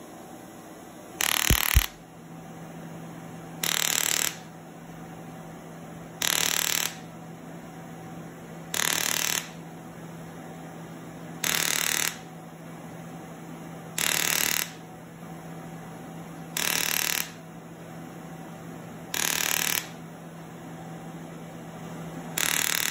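Sciton erbium laser scanner handpiece firing pass after pass during ProFractional / MicroLaserPeel skin resurfacing: a loud burst about half a second long, repeated about every two and a half seconds, over a steady low hum.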